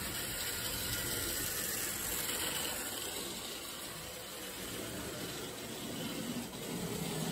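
O gauge toy train pulling tank cars along three-rail metal track, giving a steady mechanical running noise of motor and wheels as it passes close by.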